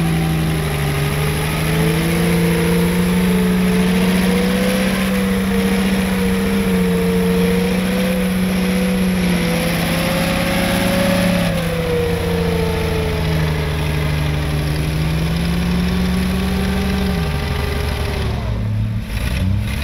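A vehicle engine running steadily under load while pulling a stuck car free, its pitch wavering slightly and dropping near the end.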